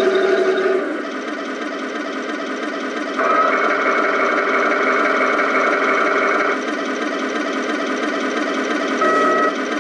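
Tamiya 1/16 Panther Ausf.G RC tank's built-in sound unit playing a steady tank-engine idle through its small speaker. From about three seconds in to about six and a half seconds a higher whine is added while the turret traverses.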